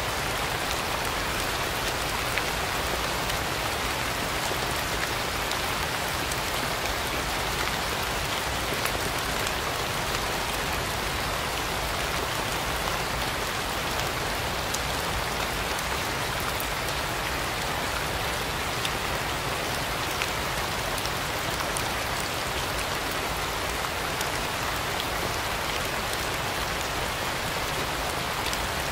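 Steady rain falling: an even hiss with scattered ticks of individual drops hitting surfaces.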